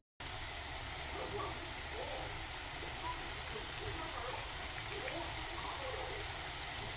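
Squid and fish-cake stir-fry sizzling steadily in a pan.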